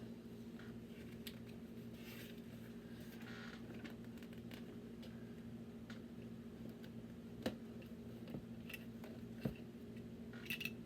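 Faint rustling and a few sharp clicks of Lego Technic plastic pieces being handled, mostly in the second half, over a steady low hum.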